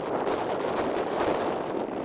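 High wind noise: strong wind blowing across the microphone, making a steady, dense noise.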